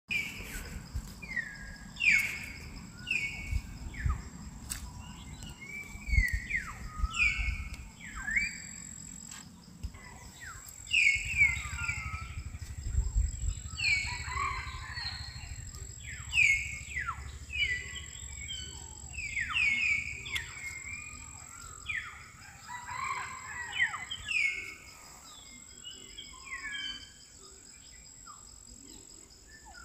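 Birds calling over and over, short downward-sliding whistled notes, often overlapping, with a thin steady high whine beneath. Bursts of low rumbling run through the first half.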